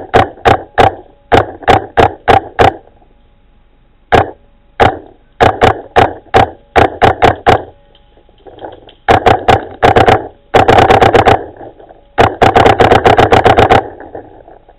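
Paintball marker firing close by in strings of shots: a spaced-out volley over the first few seconds, then a pause, then faster strings, ending in two rapid bursts of about ten shots a second.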